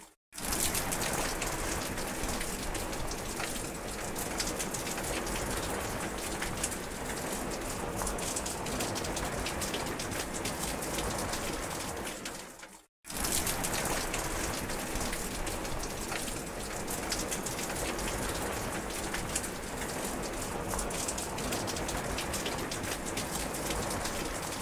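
Steady rain falling, an even hiss of many drops. About halfway through it fades out to a moment of silence and then starts again.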